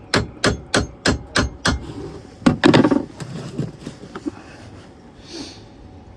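Hammer tapping a socket onto an engine mount bolt head, about three even blows a second, then a louder clattering burst about two and a half seconds in and a few lighter knocks.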